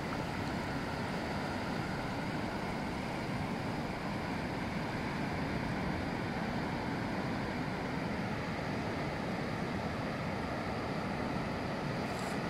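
Steady rush of wind and breaking surf, even and unbroken throughout.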